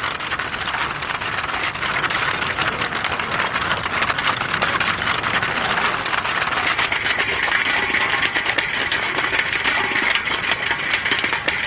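Film projector running: a steady, fast mechanical clatter, with a higher whine joining in about halfway through.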